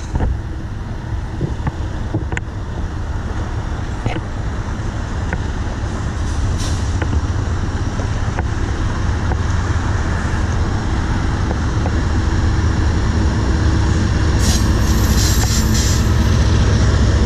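Three CN diesel locomotives pulling an inbound freight train, their engines rumbling low and steady and growing gradually louder as they approach and pass close by. A brief high-pitched hiss comes near the end.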